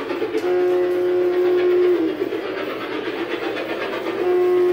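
G scale model steam locomotive's sound system blowing its whistle: one long steady blast that dips in pitch as it ends, then a second blast starting near the end. Underneath runs the steady sound of the train moving along its track.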